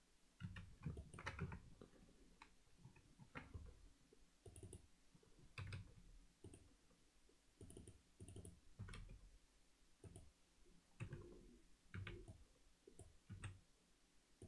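Faint, irregular clicking of a computer mouse and keyboard keys, a few clicks a second with short gaps between them.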